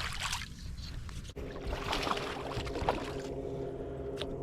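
A short splash of water, then from about a second and a half in a steady hum from a boat motor running under some further water noise.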